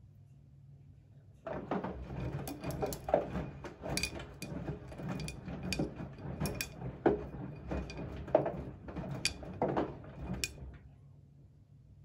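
Siemens front-loading washing machine drum turning in the wash, laundry and soapy water sloshing with irregular knocks and clicks. The tumbling starts after a pause of about one and a half seconds and stops near the end, leaving a faint low motor hum.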